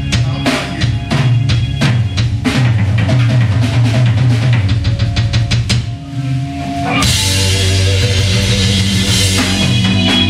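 Live rock band playing with the drum kit to the fore: quick drum hits over a bass line, a brief drop-off about six seconds in, then the full band comes back in loud with a wash of cymbals.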